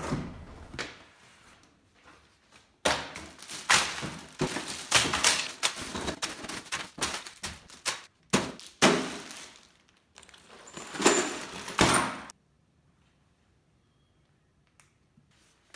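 Bagged plastic model-kit parts being tipped out and handled on a table: crinkling plastic bags with thunks and knocks of the parts landing, in a busy run that cuts off suddenly about twelve seconds in.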